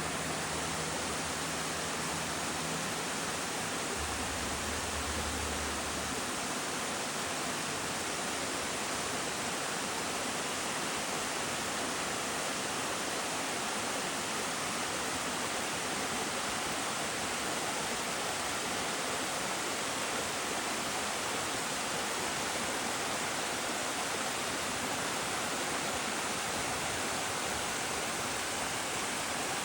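Small waterfall cascading down several low steps, its water splashing in a steady, even rush.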